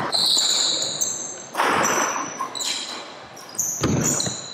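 Badminton doubles rally on a wooden court: shoe soles squeaking sharply as players lunge and turn, and racket strikes on the shuttlecock, three of them loud, about a second and a half to two seconds apart.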